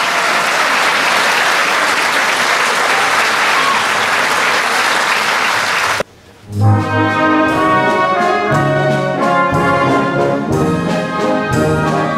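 An audience applauding steadily for about six seconds, then an abrupt cut to a symphony orchestra playing a rhythmic passage led by brass.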